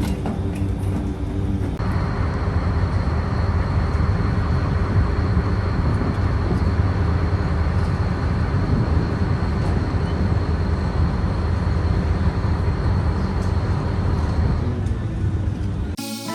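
Steady low rumble of a vehicle's engine and motion as heard riding aboard, with a faint steady high whine from about two seconds in until near the end.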